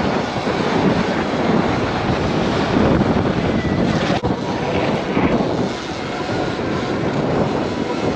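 Wind rushing over the microphone of a moving rider, with road and tyre noise underneath, steady and loud. A short knock about four seconds in.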